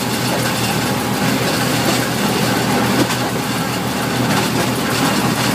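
Fendt 207 V tractor running under load at about 1600 rpm, driving a 2 m flail mulcher through its PTO while the mulcher shreds grass at speed; a steady mechanical din of engine, rotor and gearbox.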